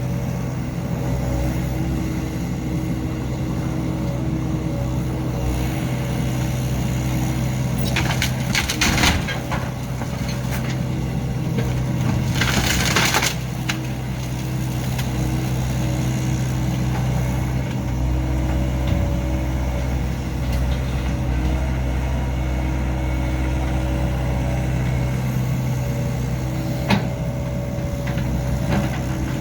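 Excavator's diesel engine running steadily while it tears apart a mobile home, with a cluster of crunching, cracking impacts about eight seconds in and a harsh scraping hiss a few seconds later.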